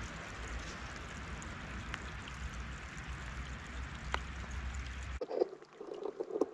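Wind buffeting the microphone over the steady wash of small waves lapping at the water's edge, with a few faint ticks. About five seconds in this cuts off abruptly, and irregular taps of rain close to the microphone take over.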